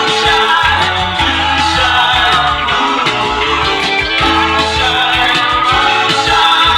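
Rock music playing with guitar over a steady bass line, loud and continuous.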